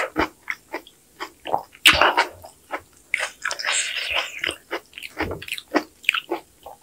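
Close-miked eating of kimchi sujebi: wet chewing of soft dough pieces with many short mouth clicks, and a couple of longer slurps of broth, the longest about three seconds in.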